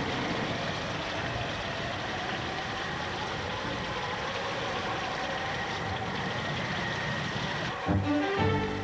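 Steady rushing noise of a storm, rain and wind, with no distinct events. Near the end, violin music comes in over it.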